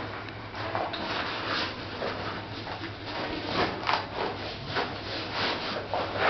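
Fabric camera bag being handled: irregular rustling, rubbing and light knocks, over a steady low hum.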